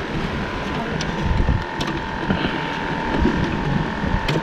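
Wind buffeting the microphone, with a faint steady hum and a few light clicks and knocks from a plastic bait bucket and its lid being handled.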